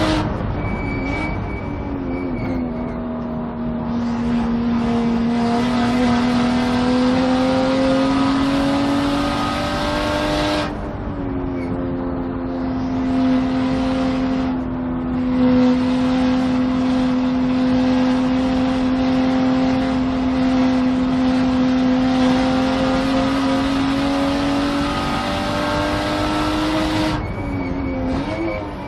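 Turbocharged BMW 3 Series race car engine running hard at high revs. The engine note drops sharply about half a second in and again about eleven seconds in, then holds steady, with a brief dip and rise near the end.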